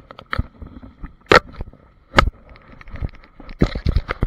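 Sharp knocks, clicks and scrapes of a camera being handled and repositioned on its mount on a Sea-Doo jet ski's handlebars. There are single loud knocks about one and two seconds in and a quick run of them near the end, over a faint steady whine.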